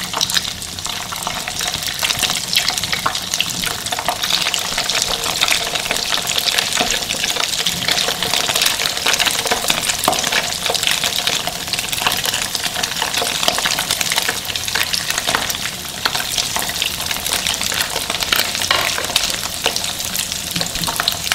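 Bread slices topped with an egg-and-fish masala shallow-frying in hot oil in a non-stick pan: a steady, crackling sizzle.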